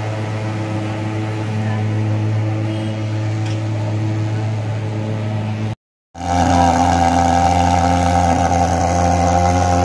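Truck-mounted fogging machine running with a loud, steady drone while it blows disinfectant fog. The sound cuts out for a moment about six seconds in, then comes back louder and brighter.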